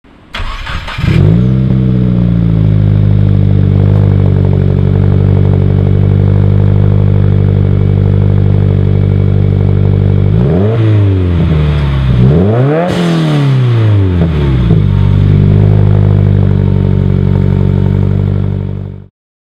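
Subaru WRX turbocharged flat-four starting through a Tomei Expreme Ti titanium single-exit catback exhaust, with the factory J-pipe and cats still in place. It cranks briefly, flares up and settles to a steady idle. About ten seconds in it is revved twice, a short blip then a bigger rev, and falls back to idle.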